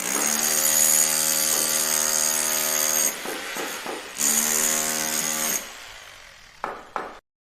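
Power tool running at a steady pitch, in a run of about three seconds and then a shorter second run after a brief pause, winding down with two sharp clicks before it stops abruptly.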